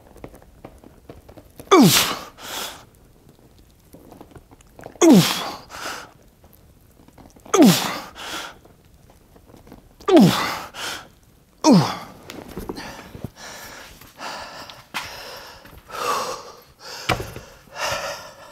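A man grunting with the strain of heavy dumbbell shoulder presses: five loud groans, each falling in pitch and followed by a quick breath, one on each rep, then hard, rapid breathing after the set.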